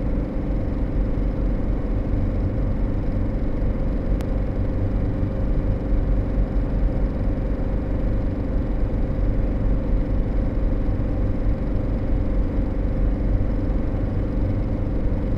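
Motorhome engine and road noise heard from inside the cab while driving, a steady low rumble with an even drone.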